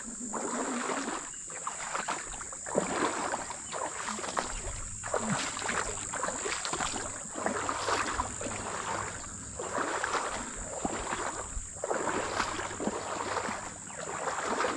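Footsteps wading through shallow water over a muddy bottom: a slosh and splash with each stride, in a steady walking rhythm.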